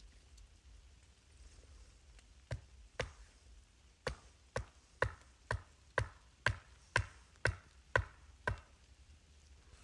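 A series of about twelve sharp knocks, roughly two a second, starting about two and a half seconds in with a short pause after the second one.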